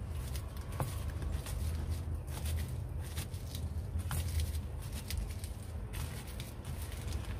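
Hands kneading and squeezing salted bitter melon slices in a plastic colander: irregular soft crunching and rustling, over a steady low hum.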